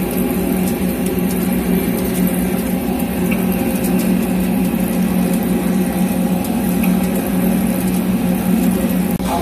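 CNC vertical lathe running, turning a large SS400 steel ring: a steady machine hum with a strong low tone and fainter higher tones.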